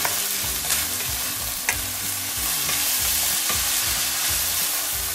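Ground meat and lotus root slices sizzling in a non-stick frying pan as a wooden spatula stirs and scrapes them, with a couple of sharp clicks of the spatula against the pan.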